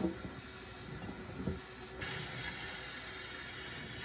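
Hand-held sandblast gun blasting inside a small homemade blast cabinet: a steady hiss of compressed air and abrasive starts abruptly about halfway through. Before it come a few low knocks as the part and gun are handled.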